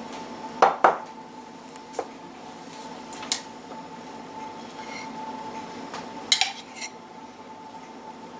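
Glassware and a metal spoon clinking against a glass mixing bowl of flour and cocoa: a few sharp knocks, two loud ones about a second in and a small cluster near the end, over a faint steady hum.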